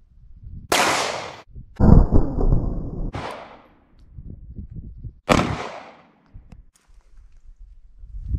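Semi-automatic pistol fired four times over about five seconds, each shot sharp with a short decaying tail.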